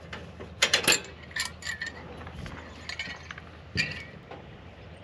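Cookware and utensils clinking and clattering as they are handled and set down, a quick cluster of knocks about a second in, then a few single clinks spread through the rest.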